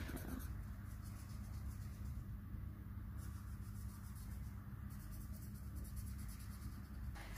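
Felt-tip markers rubbing on paper as two children colour, a faint scratchy scribbling.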